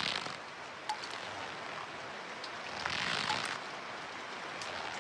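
Steady crackling hiss with no music, swelling near the start and again about three seconds in, with a single faint click about a second in.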